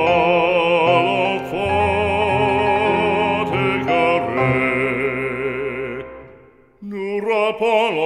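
Background music: a French religious song, sung with strong vibrato over low held accompaniment. A long held phrase fades out about six and a half seconds in, and a new phrase begins just before the end.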